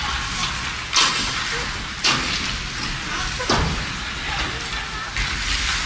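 Ice hockey play: skates scraping on the ice, with three sharp knocks of stick and puck about one, two and three and a half seconds in.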